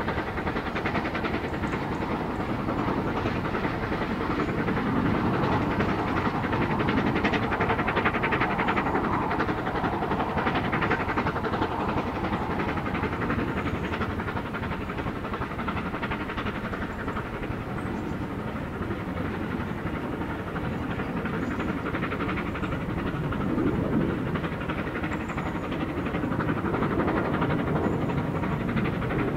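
Vale of Rheidol 2-6-2T narrow-gauge steam tank locomotive working a train of coaches, its exhaust beats going steadily, with the coaches rolling along behind.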